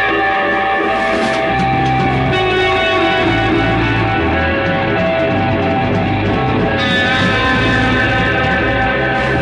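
Live rock band playing an instrumental passage in a psychedelic rock style: electric guitar holding long notes over bass.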